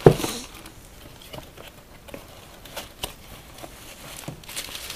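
A grey plastic mailer bag torn open with one loud rip at the start, then scattered small clicks and rustling as a small cardboard box is handled and its flap opened, with plastic wrap crinkling near the end.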